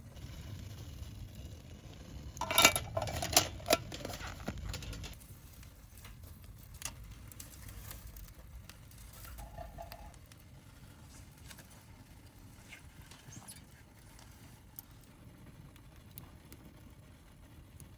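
Metal cookware clattering: a quick run of clinks and rattles lasting about two and a half seconds, a few seconds in.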